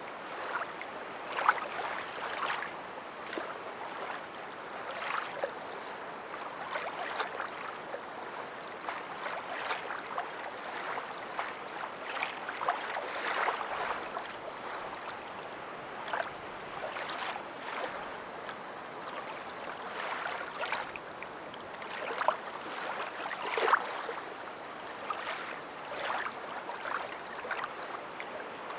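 Water splashing and lapping in irregular short strokes.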